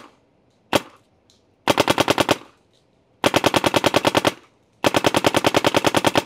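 Planet Eclipse 180R compressed-air paintball marker firing: two single shots, then three rapid ramping bursts of about a dozen shots a second, each burst longer than the last.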